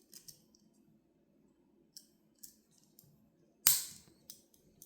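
Light metal clicks of a Swiss Army knife being handled, then, a little over halfway through, one loud sharp snap as a tool springs home on its backspring, followed by a few softer clicks.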